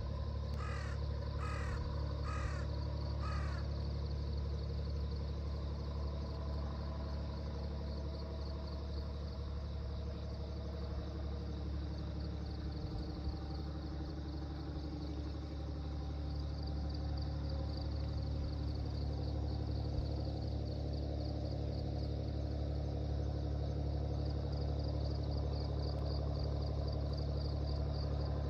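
A crow cawing four times in quick succession near the start, over a steady low rumble.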